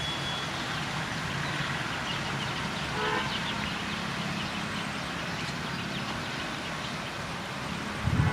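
MEMU electric multiple unit train running with a steady hum, giving a short horn toot about three seconds in. A brief low thump comes near the end.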